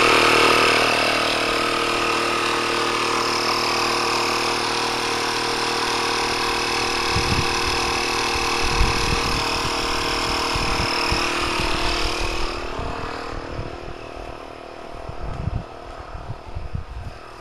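Tire-inflating air pump running steadily, pumping up a tire filled with foam sealant; about twelve seconds in it is switched off and its pitch winds down to a stop. A few low knocks of handling follow.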